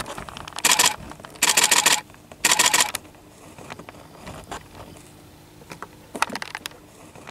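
Camera shutter firing in three short bursts of rapid clicks within the first three seconds, then only a few faint scattered ticks.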